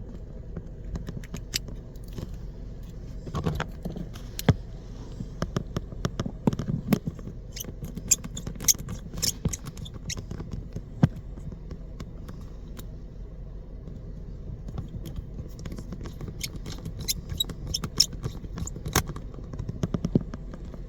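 Small, sharp metallic clicks and ticks, scattered and irregular, as a precision screwdriver drives the iPhone 11's two bottom screws back in and tools are handled against the phone. A low steady hum runs underneath.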